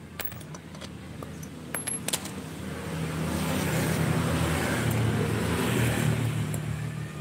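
A motor vehicle passes, its engine and road noise swelling from about three seconds in and fading near the end. Before that come a few light metallic clicks of hand tools on a dismantled motorcycle cylinder head.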